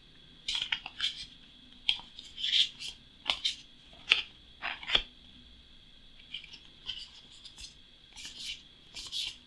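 Printed cardboard map tiles being handled: irregular short scrapes, rubs and light taps as the tiles are slid and set down.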